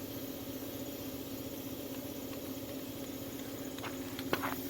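An engine idling with a steady, even hum. There is a single sharp click near the end.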